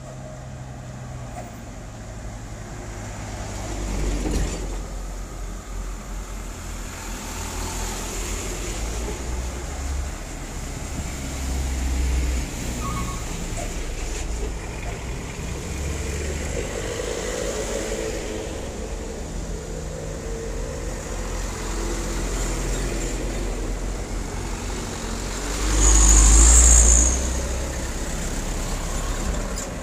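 Road traffic passing: trucks and a minibus driving by one after another, their engines a low rumble that swells as each goes past. About 26 seconds in, a louder swell comes with a brief high hiss as a heavy truck passes.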